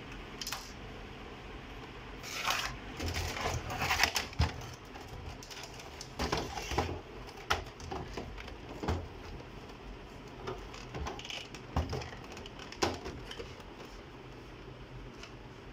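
Irregular knocks, clicks and brief scraping of the plastic and metal parts of an HP ScanJet Enterprise 7500 scanner being handled by hand, loudest about four seconds in and dying away near the end.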